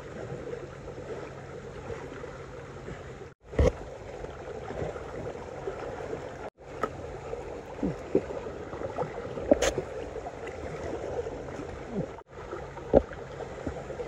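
Small sea waves lapping and washing against shoreline rocks, with a few sharp knocks or clicks of handling on top, the loudest near the end, and three brief gaps where the sound drops out.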